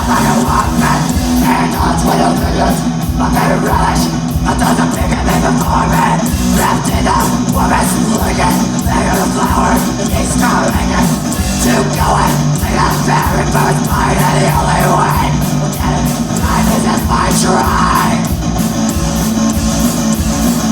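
Live rock band playing loudly, a heavy song with a steady driving beat and sustained low notes.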